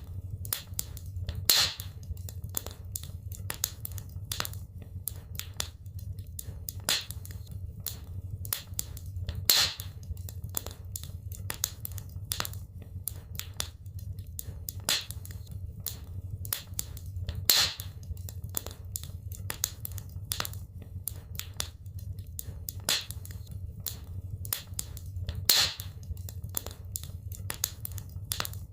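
Wood fire crackling in a fireplace: constant small snaps and crackles over a low steady rumble, with a louder pop about every eight seconds.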